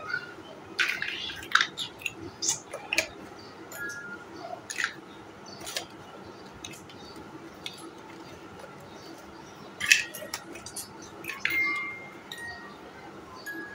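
Large hollow plastic building blocks clicking and clattering as they are pressed together and picked from a loose pile, a string of separate knocks with the loudest about ten seconds in.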